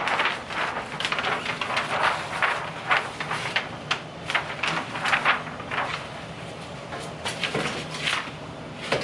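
A large sheet of brown kraft paper rustling and crinkling as it is handled and laid flat, in uneven crackles; near the end the heat press platen is pulled down shut with a few sharper knocks.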